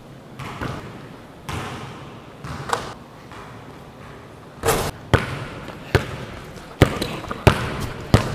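Basketball bouncing on a hardwood gym floor as a player dribbles: sharp bounces about every three-quarters of a second through the second half, after a few softer knocks and scuffs.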